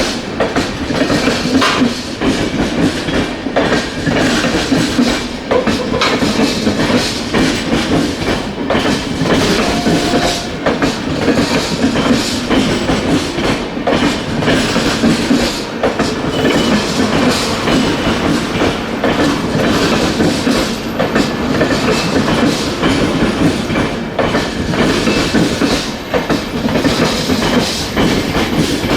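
Express passenger train coaches passing at high speed, their wheels clattering over rail joints and points in a fast, continuous clickety-clack.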